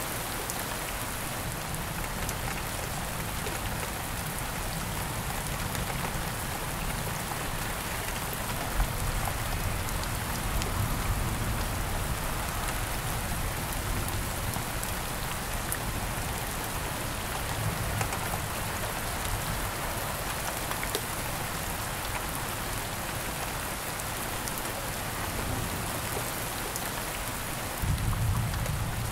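Steady rain falling, an even hiss of many drops, with a few brief low rumbles mixed in, the strongest near the end.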